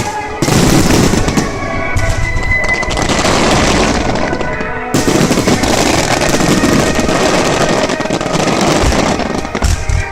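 Starmine fireworks: a dense, rapid barrage of shells bursting and crackling, set to music. The barrage starts about half a second in and surges again about five seconds in.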